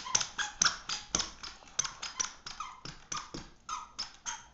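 Toddler's squeaker shoes squeaking with each step as she walks and runs, a quick string of short high chirps, about four a second.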